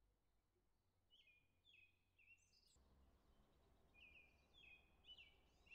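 Near silence, with faint bird chirps: short falling notes repeated in two quick runs. A faint low background noise comes up about halfway.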